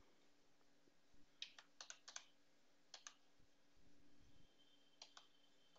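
Faint computer keyboard keystrokes as a terminal command is typed: a quick run of key presses about one and a half seconds in, a couple more around three seconds, and two near the end.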